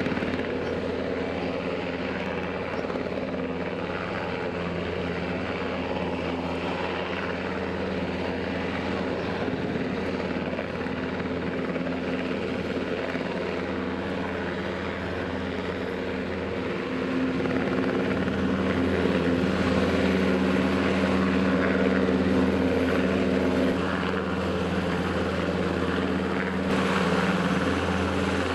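Military helicopters hovering low over the water, their rotors and engines running steadily; the sound grows louder partway through as they come closer.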